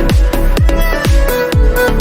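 Electronic dance music with a deep kick drum about twice a second under sustained synth notes.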